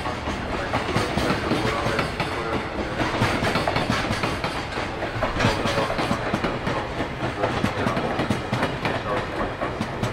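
Container freight train's flat wagons rolling past at speed: a steady rush of steel wheels on rail, with repeated clacks as the wheels cross rail joints.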